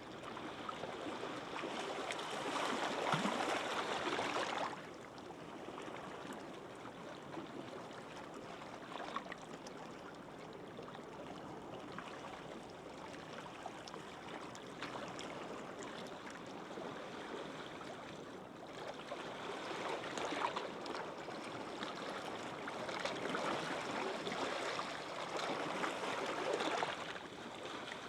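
Small, gentle sea waves washing up on a sand beach, with a louder surge of surf at about 3 seconds in that drops away suddenly at about 4.5 seconds, and another swell building from about 19 seconds in that cuts off near the end.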